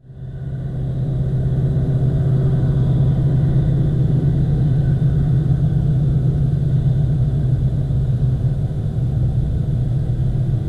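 A steady, low engine rumble that fades in over the first second or two and then holds even.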